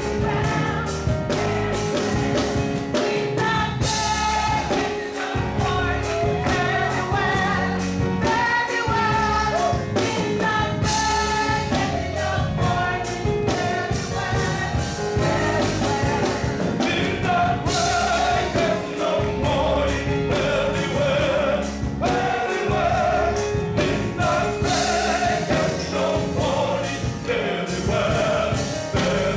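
Gospel choir singing with a live band, the drums keeping a steady beat under the voices.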